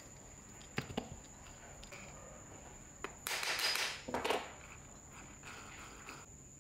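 Small metal drill parts being handled and fitted together: two light clicks about a second in, then a short scraping rattle a little past the middle as the armature is worked into the gear housing.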